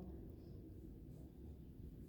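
Near silence: faint low background rumble of room tone.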